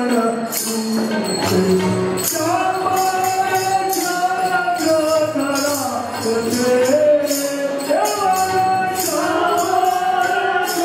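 Devotional music for a Jain pooja: a melody of long held notes that slide between pitches, over a steady jingling percussion beat.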